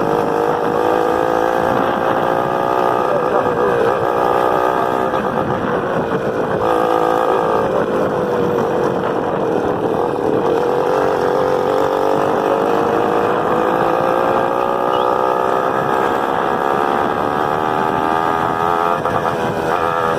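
Single-cylinder four-stroke engine of a Honda CG 125 motorcycle running while riding, its pitch slowly rising and falling with throttle and speed, dipping twice and dropping near the end.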